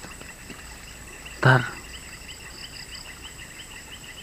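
Background chorus of calling insects: a rapid, even chirping that repeats about five times a second. A single short spoken word comes about a second and a half in.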